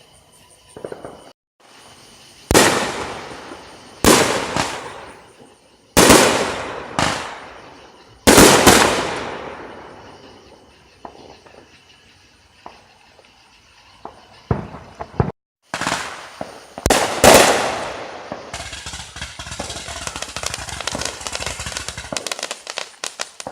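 Fireworks going off: a series of sharp booms, each trailing off in a long echo, spaced a second or two apart. Near the end come a few seconds of rapid, dense crackling like a string of firecrackers.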